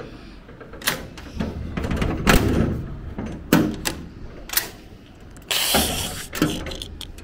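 Sharp clicks and knocks from a metal gate being unlatched and swung open, with a brief louder rush of noise about five and a half seconds in.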